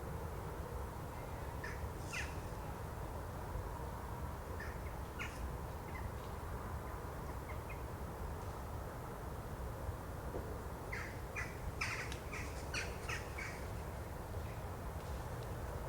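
Jackdaws at a night roost calling: a few scattered short, sharp calls, then a quick run of several calls about two-thirds of the way through, over a steady low rumble.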